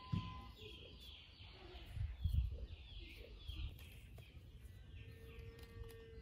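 Songbirds chirping in a steady series of short falling calls, with a few low thumps about two seconds in. Near the end a young goat kid gives one long bleat.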